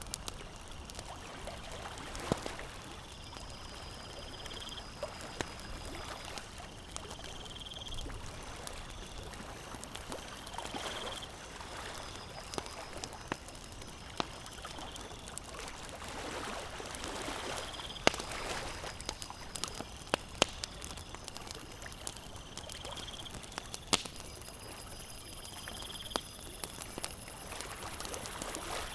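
Campfire crackling, with scattered sharp pops, over small lake waves lapping in slow swells every few seconds. A faint high chirping call repeats every couple of seconds.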